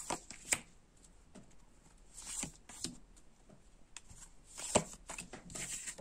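A deck of Dixit cards being shuffled by hand and dealt out: soft, intermittent rustling and flicking of the cards, with several short sharp snaps.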